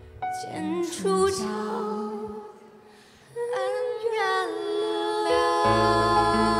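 Female voices singing a Chinese pop ballad duet over a soft backing track: two sung phrases with vibrato and a short pause between them, then a bass line comes in about five and a half seconds in.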